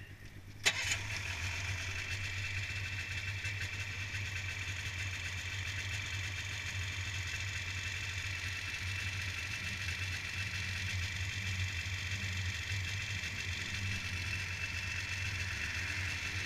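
Snowmobile engine firing up suddenly about a second in, then idling steadily.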